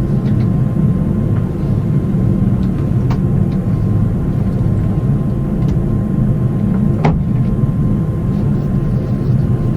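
Airliner cabin noise in flight: a steady low rumble of engines and airflow, with a faint click about seven seconds in.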